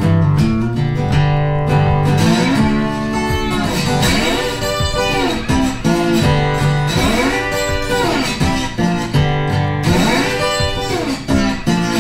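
Background music led by guitar, with notes that slide up and down through the middle.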